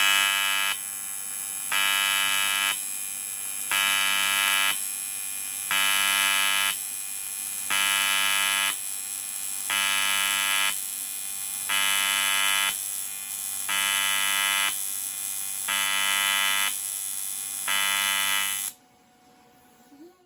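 TIG welding arc buzzing, in a pulsed rhythm that swells louder for about a second every two seconds, nine times, then cuts off suddenly near the end when the arc is broken.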